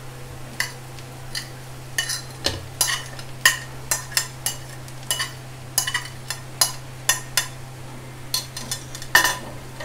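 Spatula scraping flaked fish off a plate into a frying pan of onions: a string of irregular clicks and taps as the spatula and plate knock against the pan, over a steady low hum.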